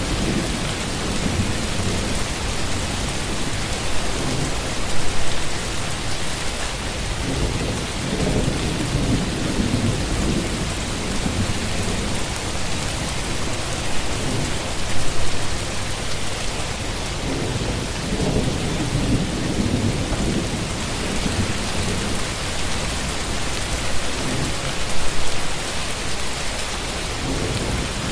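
Steady heavy rain falling, with low thunder rumbles that swell and fade several times. Short louder peaks come about every ten seconds.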